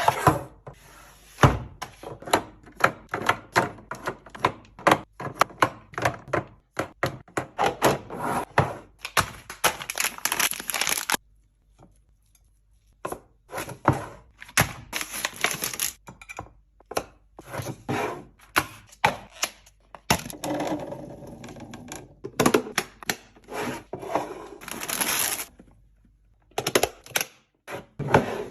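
Irregular run of clicks, taps and clatters of food packages and plastic containers being handled and set down during a restock. It is broken by a few stretches of crinkling packaging and a brief pause about halfway through.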